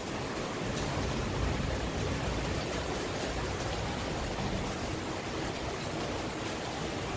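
Steady rain falling: a continuous, even hiss.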